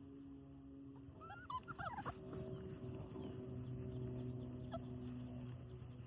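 Five-week-old Labrador puppies whimpering and yipping in short, high, bending squeaks, a quick cluster of them about a second in and one more near the end, over a steady low hum.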